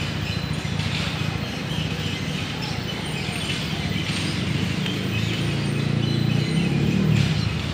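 Outdoor ambience: a steady low engine rumble that grows a little louder near the end, with faint bird chirps over it.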